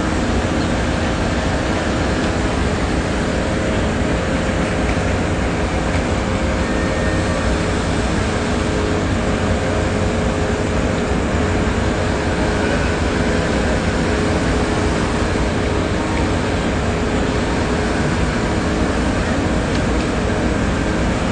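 Concrete mixer truck's diesel engine running steadily, a constant rumble with a few steady hum tones over it.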